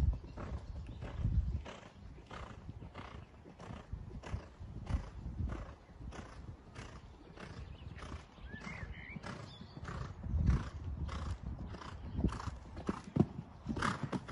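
Horse cantering on sand footing: a regular beat of hoofbeats and breathing about twice a second, with a few heavier thuds as it takes off and lands over fences.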